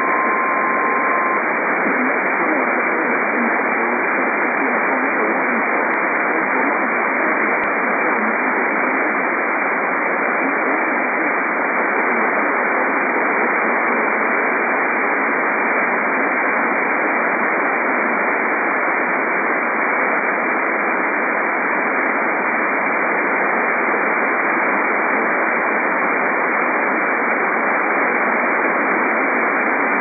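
Steady AM radio static hiss with no programme audible. A single steady alert tone near the start cuts off about a second and a half in.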